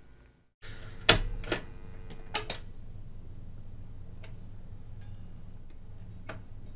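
Automatic record changer of a 1965 Grundig radiogram starting up: several sharp clicks from the start button and changer mechanism about a second in, then a steady low hum as the turntable runs and the tonearm swings across, with a couple of faint clicks later.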